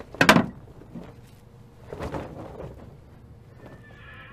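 Two brief handling rustles: a loud, short one just after the start and a softer one about two seconds in. Faint held music notes come in near the end.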